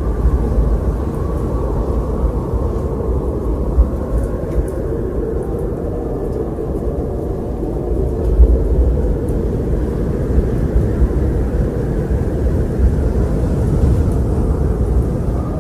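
Wind blowing steadily: a deep, even rumble with a faint wavering whistle above it.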